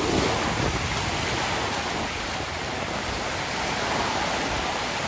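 Ocean surf breaking and washing over the shallows: a steady rush of water.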